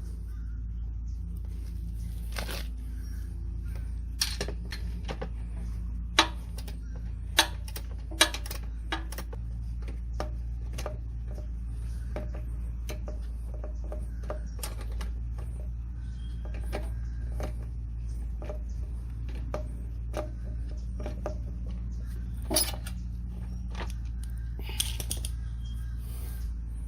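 Irregular sharp metallic clicks and clinks of hand tools and small parts being handled, a few much louder than the rest, over a steady low hum.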